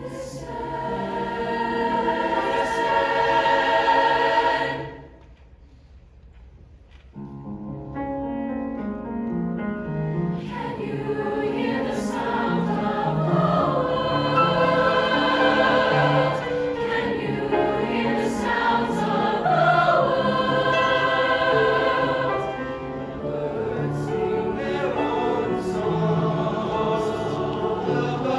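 Choir singing in parts, with sustained chords that break off about five seconds in and resume a couple of seconds later, then carry on with moving melodic lines.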